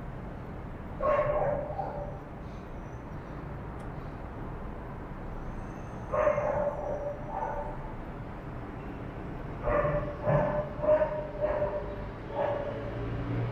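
Dog barking: one bark about a second in, another about six seconds in, then a quick run of about five barks near the end.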